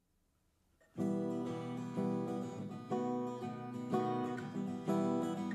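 Near silence, then about a second in strummed guitar chords begin, with a strong strum roughly once a second: the instrumental introduction to a hymn.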